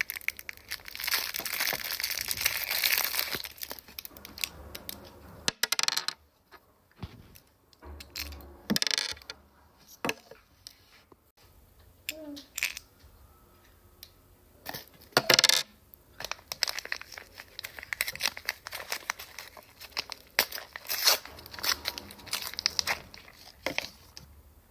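Plastic toy packets being torn open and crinkled by hand: dense crackling and rustling in the first few seconds and again near the end, with scattered sharp clicks and rustles in between.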